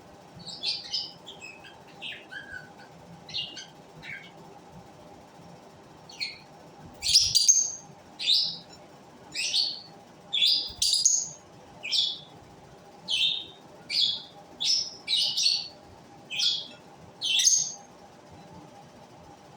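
Pet lovebirds calling: a few soft chirps at first, then loud, shrill calls repeated about once a second from about six seconds in.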